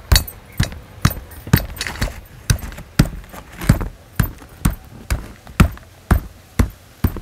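A stone pestle pounding lumps of jaggery in a stone mortar to crush them, a steady run of dull knocks at about two a second.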